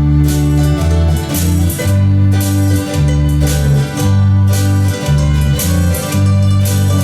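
Acoustic country instrumental on mandolin with strummed guitar, over deep bass notes that change about once a second.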